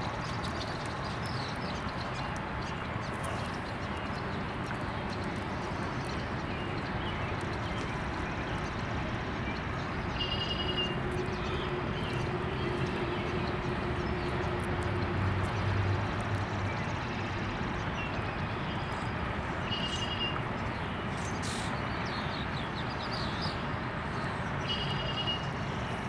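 Outdoor park ambience: a steady background rush, with a bird giving short high chirps a few times in the second half. A low hum swells briefly past the middle.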